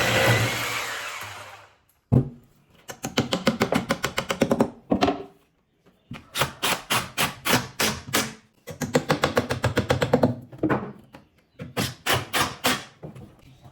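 A power tool runs and dies away over the first two seconds. Then come four bursts of rapid sharp clicking knocks, about ten a second, each burst lasting a second or two.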